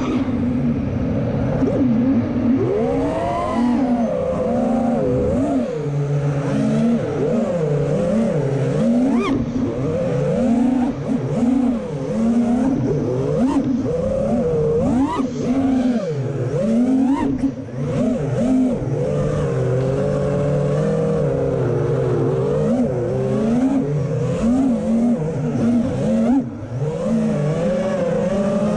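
FPV freestyle quadcopter's brushless motors whining, the pitch swooping up and down constantly as the throttle changes.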